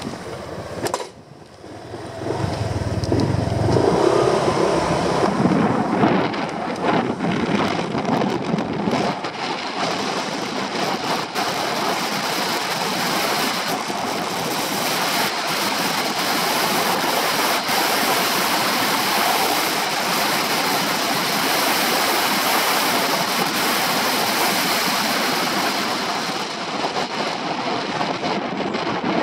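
Honda PCX 125 scooter's single-cylinder engine pulling away, soon buried under heavy, steady wind noise on the microphone as the scooter rides along.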